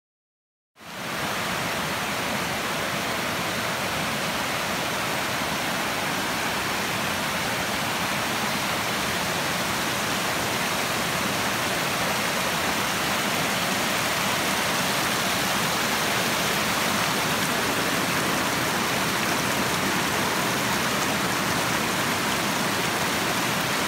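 Hat Creek waterfall: a steady, unbroken rush of falling water that cuts in suddenly after silence about a second in.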